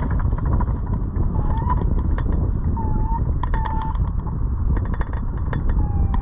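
Wind buffeting the microphone of a glider-mounted camera, a steady low rumble, with short high chirping tones every second or so and scattered faint clicks over it.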